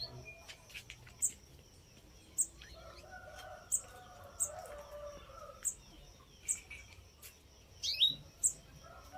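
Young white-rumped shama giving short, sharp high chirps about once a second, with a quick rising call note about eight seconds in.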